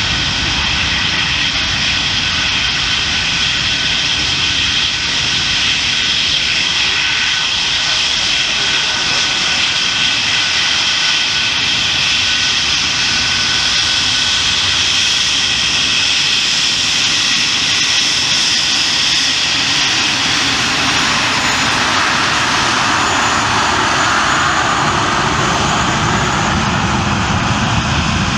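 English Electric Lightning's twin Rolls-Royce Avon turbojets running as the fighter taxis past: loud, steady jet noise with several high whining tones. After about twenty seconds the whine fades and a broader rushing exhaust noise takes over.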